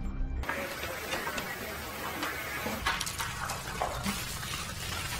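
Steady hissing noise with scattered small clicks and crackles, starting suddenly as the music cuts out about half a second in.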